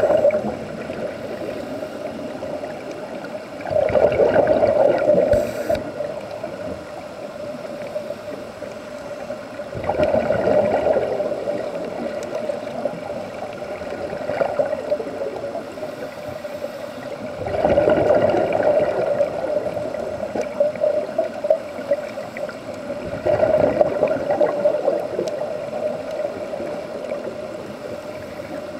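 Scuba regulator breathing heard underwater: exhaled bubbles gurgle out in bursts of a second or two, about every six seconds, with a steady hiss between them.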